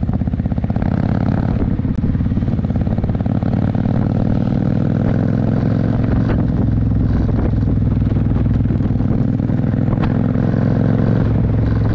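Motorcycle engine running at a steady cruise while riding, its low firing note continuous with no break.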